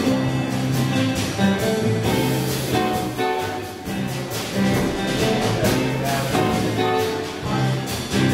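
A live band of electric guitars, electric bass and drum kit playing an instrumental number: held guitar notes over drum hits, with no singing.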